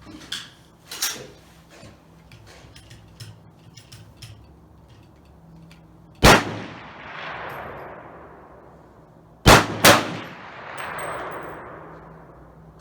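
Three rifle shots: one about halfway through, then two fired close together about three seconds later, each followed by a long rolling echo. Before them come a few small metallic clicks of the rifle being handled.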